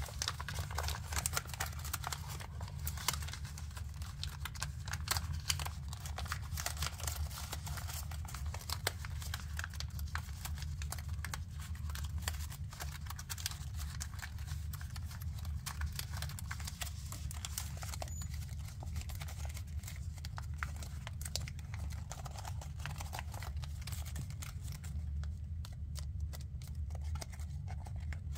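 Paper being folded and creased by hand: rustling and crinkling with frequent small crackles and taps from fingers and nails pressing the folds. The crackles thin out near the end. A steady low hum runs underneath.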